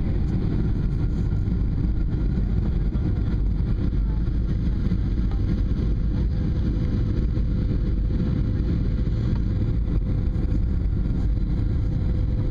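Steady low rumble of engines and rushing air heard inside a passenger aircraft's cabin during the descent to land, with a faint steady hum over it.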